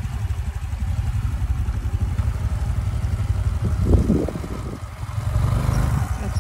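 Honda CT125's single-cylinder engine running at low speed as the bike circles, a low steady pulsing. There is a brief louder burst about four seconds in, and the engine note grows louder near the end as the bike passes close.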